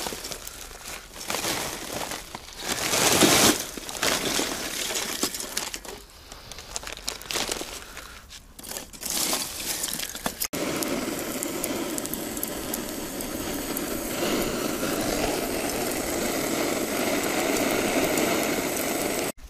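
Irregular crinkling and crumpling handling noise. After an abrupt cut about halfway through it gives way to a steady crackling hiss.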